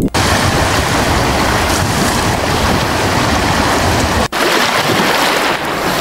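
Stock ocean sound-effect previews playing back: a steady rush of wind and sea-wave noise. It breaks off for an instant about four seconds in as one clip gives way to the next.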